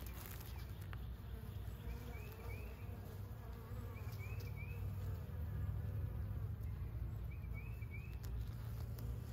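A colony of honeybees buzzing steadily around an open hive as a bee-covered brood frame is held up.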